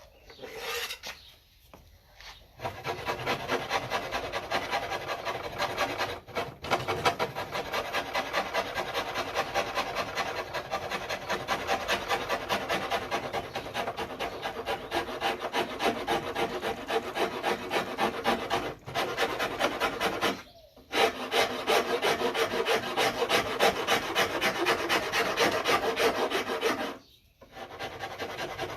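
Hand rasp filing steadily back and forth on the wooden neck of a neck-through bass, carving its profile in quick, even strokes, with three brief pauses.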